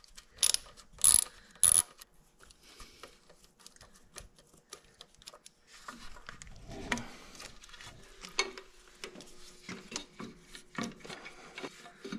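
Ratchet wrench clicking in three short bursts about half a second apart, then quieter scattered clicks and rubbing as a radiator hose clamp is worked loose.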